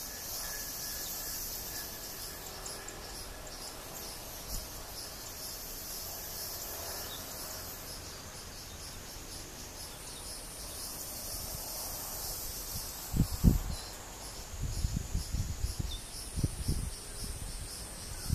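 Steady high-pitched chorus of insects, pulsing evenly throughout. In the last few seconds come several loud, low thumps and rumbles, the loudest about two-thirds of the way in.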